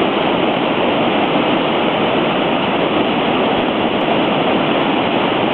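Rain-swollen creek and waterfall in flood, rushing loudly and steadily.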